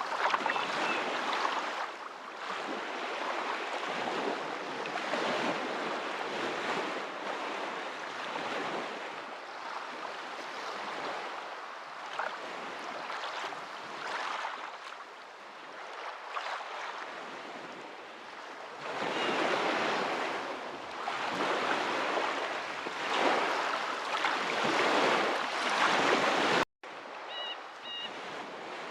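Ocean waves washing in and receding, a steady rush that swells and fades every few seconds. It cuts out abruptly near the end and comes back quieter.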